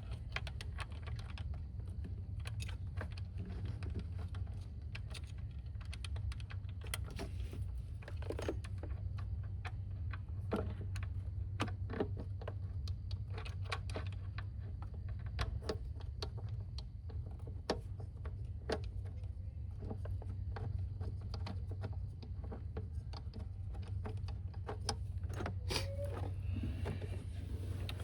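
Irregular light clicks and taps of metal parts and hand tools being handled while refitting a throttle body in an engine bay, over a steady low hum.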